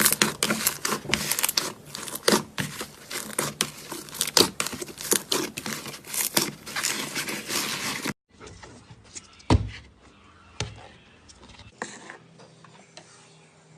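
Slime being squeezed and worked, giving dense crackling, crinkling pops. About eight seconds in the sound cuts to a much quieter stretch with only a couple of soft squishes.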